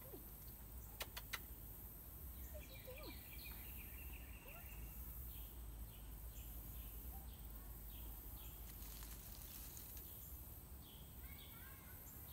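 Faint outdoor ambience: small birds chirping in short, repeated calls over a low rumble, with a couple of sharp clicks about a second in.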